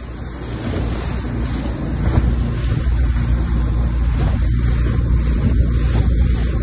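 A dinghy's outboard motor running at speed, mixed with wind buffeting the microphone and water rushing past the hull. It grows louder over the first couple of seconds, then holds steady.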